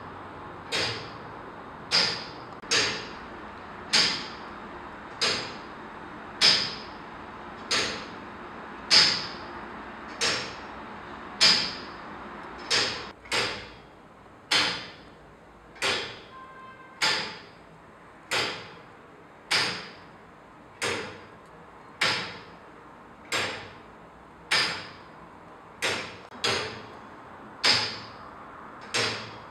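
Tower clock movement ticking: sharp, metallic ticks with a short ringing tail, roughly one a second, keeping an even beat.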